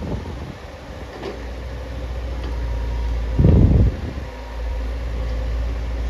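Heavy diesel machine's engine running with a steady low rumble, briefly louder for about half a second around three and a half seconds in.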